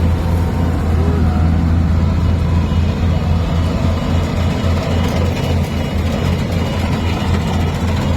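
Diesel engine of a farm machine running steadily: a deep, even drone that wavers slightly in the second half.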